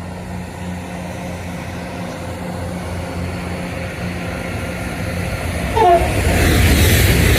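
Passenger train approaching with a low steady hum that grows slowly louder, then passing close at speed from about six seconds in with a loud rushing rumble. A brief falling tone sounds just as it arrives.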